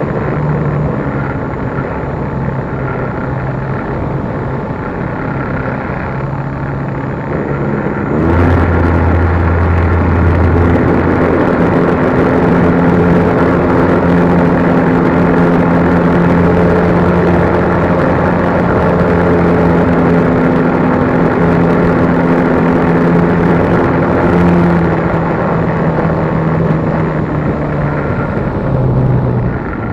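RC model plane's motor and propeller heard from a camera mounted on the plane: a steady drone whose pitch drops at the start, climbs back at about eight seconds as the throttle opens, and eases down again around twenty-five seconds.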